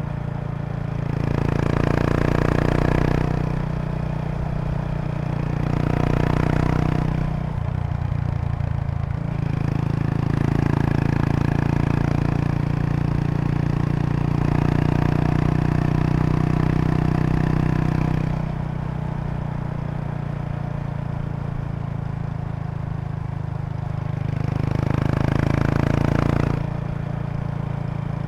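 2003 Kawasaki Estrella RS's single-cylinder engine running through a Yamato aftermarket muffler while riding, the exhaust note rising and falling with the throttle, louder in several stretches and easing back between them. A light buzzing rattle comes from the seat bag's stiffener plate resonating with the bike's vibration.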